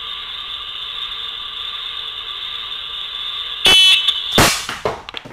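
Slingshot shot: a loud, briefly ringing crack about three and a half seconds in, then a second sharp smack a little over half a second later, followed by a few small clicks as the shot strikes the target. A steady high hiss runs underneath.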